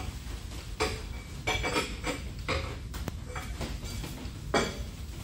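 A series of sharp metallic clinks and taps, unevenly spaced and the loudest near the end, as a hand tool works the adjusting screws of a lathe's levelling feet.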